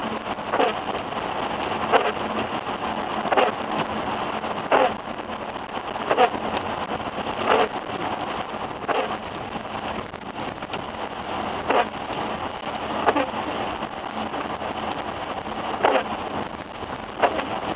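Windshield wipers sweeping about every second and a half over steady rain and road noise in a moving car.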